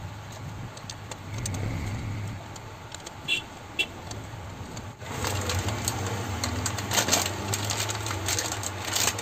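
Plastic wrapper of a new motorcycle oil filter crinkling and tearing as it is opened by hand, starting about halfway through, over a steady low hum. A couple of light clicks come before it.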